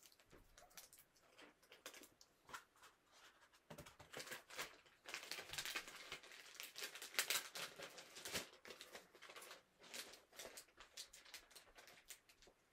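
Faint rustling and crinkling of packaging being handled and unwrapped, with scattered light clicks, busiest in the middle.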